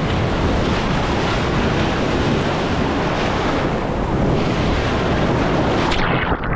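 Ocean surf with strong wind buffeting the microphone, a steady loud rushing. About six seconds in the high hiss drops away abruptly.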